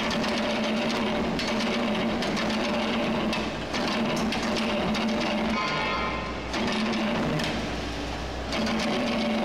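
Charcoal briquetting machine running, its screw extruder pushing out charcoal sticks: a continuous dense rattling clatter over a steady motor hum that fades and returns every few seconds.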